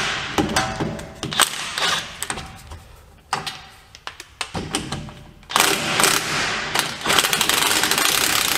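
Cordless DeWalt 20V XR impact wrench hammering on a driveshaft U-joint bolt through a 12 mm 12-point swivel socket. It runs in two bursts: a short one at the start and a longer, louder one from about five and a half seconds in.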